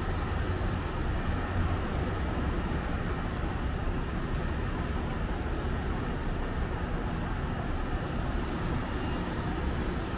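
Steady road traffic noise: a continuous low rumble with no single vehicle standing out.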